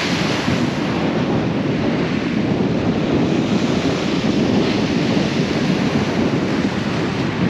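Wind blowing across the microphone over waves breaking on a steep shingle beach, a steady loud noise.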